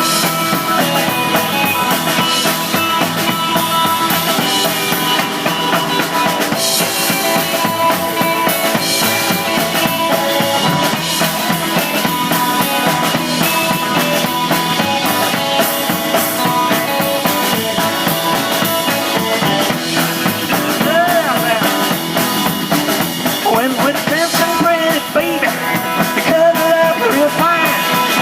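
Live rock and roll band playing an instrumental break between sung verses, with a drum kit keeping a driving beat under sustained instrumental notes; bending notes come in over the last several seconds.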